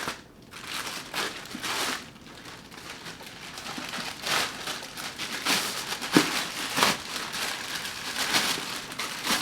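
Packaging being handled and torn open by hand while a delivery package is unwrapped: irregular crinkling and rustling with a few sharper crackles.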